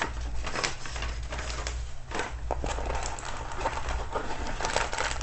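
Plastic and paper packaging of a diamond-painting kit rustling and crinkling in irregular bursts as the contents are handled and unpacked.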